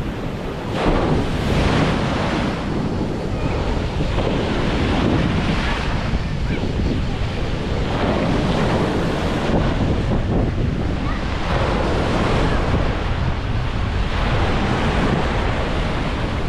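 Sea waves washing onto a beach, swelling and easing in repeated surges, with wind buffeting the microphone as a low rumble.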